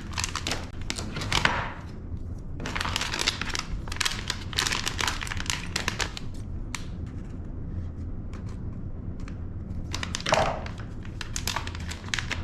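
Plastic packaging bag crinkling and crackling as it is handled, in three spells with quieter gaps between.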